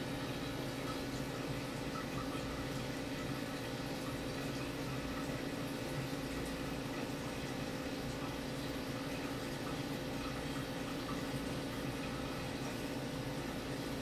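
Aquarium filter running: a steady trickle of moving water over a constant low hum.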